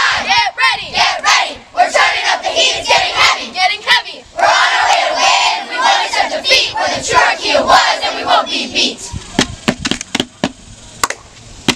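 Crowd of girls yelling and cheering in high voices, dying down about nine seconds in to scattered hand claps.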